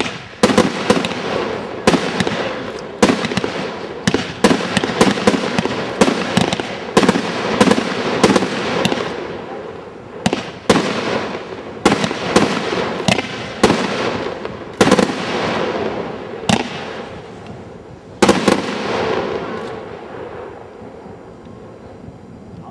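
Aerial fireworks bursting one after another: sharp bangs in quick succession with echoing and crackle filling the gaps between them. After about nine seconds the bangs come more spaced out, and near the end the sound dies away.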